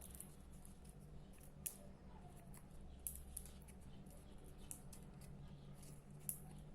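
Faint handling of paper, cardboard and tape: a few small sharp clicks and snips spread irregularly over a low steady hum, near silence overall.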